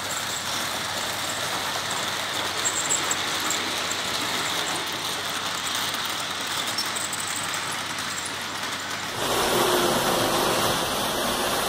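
Märklin HO model trains, the Big Boy 37990 among them, running on the layout's metal track: a steady whirring rumble of motors and wheels that grows a little louder about nine seconds in.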